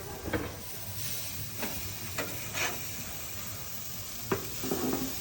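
Sockeye salmon fillets sizzling on a hot grill, with a few short scrapes and taps as they are flipped; a sharp click about four seconds in is the loudest.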